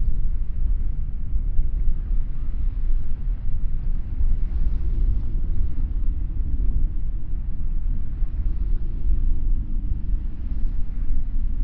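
Wind buffeting the microphone: a low, gusty rumble that rises and falls.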